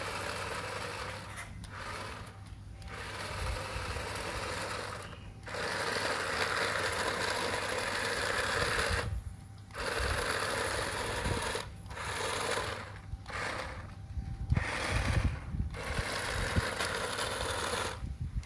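Small electric drive motor and plastic gears of a toy RC forklift whirring in short runs, starting and stopping about eight times as it drives and turns.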